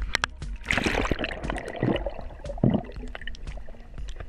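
Sea water splashing and gurgling around a camera held at the surface, in irregular splashes as the waves wash over it and it dips underwater.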